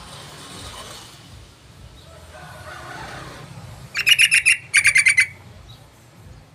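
Yellow-vented bulbul calling: two quick bursts of rapid chattering notes about four seconds in, each lasting about half a second.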